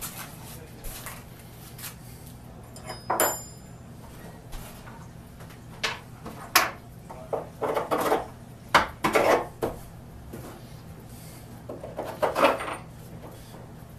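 Metal tools and hardware clinking and clattering in short, irregular bursts, with the loudest runs of clatter about halfway through and near the end, over a steady low hum.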